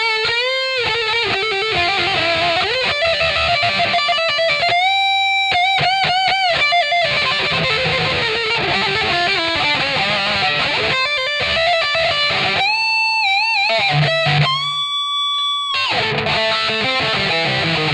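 Ibanez RC720 Premium electric guitar with Core-Tone humbuckers, played through an amplifier in solo-style lead lines. A fast run of notes is broken by several long held notes that waver in pitch.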